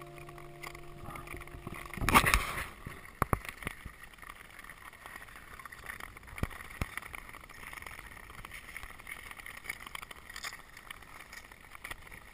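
Background music for the first two seconds, cut off by a burst of noise; then touring ice skates gliding on natural lake ice, a steady hiss of blades with scattered sharp scrapes and ticks as the skaters push off.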